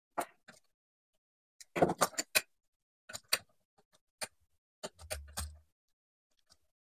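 Scattered small metallic clicks and taps of a screwdriver, wire and receptacle as a ground wire is fastened under the outlet's green ground screw, with a quick cluster of clicks about two seconds in and a soft low bump about five seconds in.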